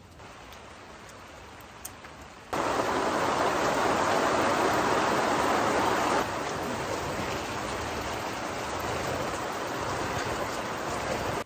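Heavy rain pouring down on a tent, heard from inside as a steady hiss. About two and a half seconds in the downpour suddenly grows much louder, then eases a little a few seconds later and keeps on steadily.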